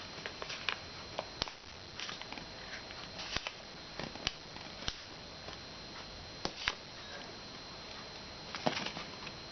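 A sheet of paper being handled and folded: irregular sharp crackles and soft rustles of creasing paper, with a cluster of crackles near the end, over a steady faint hiss.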